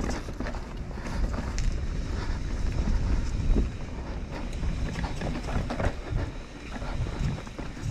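Mountain bike running downhill on a trail: tyres rumbling over dirt and features, with frequent clicks and rattles from the bike and wind buffeting the microphone.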